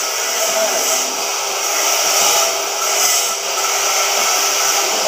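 CNC oxy-fuel cutting torch burning through thick steel plate: a steady, loud hissing rush of cutting gas and burning steel that does not let up.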